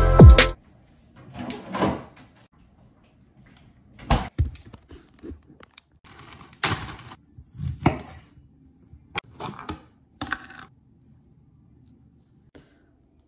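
Scattered knocks and brief rustles of snack prep on a wooden cutting board: the board, a knife and broccoli being handled and set down, with quiet gaps between.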